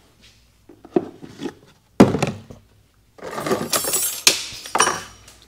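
Workshop handling noise: a heavy thunk about two seconds in, then a run of clattering and clinking, as of hand tools and metal parts being moved about.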